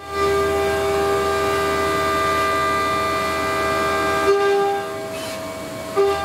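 A 50 mm end mill on a Makino L2 vertical machining center cutting ductile cast iron (FCD450), giving a loud, steady whine of several tones at once. The whine drops somewhat quieter a little over four seconds in and comes back just before the end, with a brief louder spike at each change.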